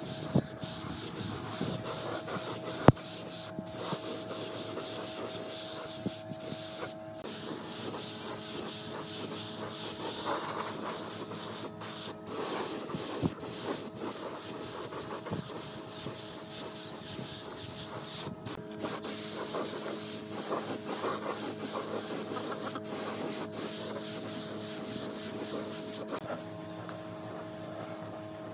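A small power tool running with a steady hum and a strong hiss, breaking off briefly several times, with one sharp knock about three seconds in.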